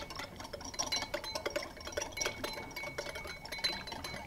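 Wire balloon whisk beating oil into vinegar in a small glass bowl, its wires clinking quickly and steadily against the glass as the last part of the oil is whisked in to emulsify the vinaigrette.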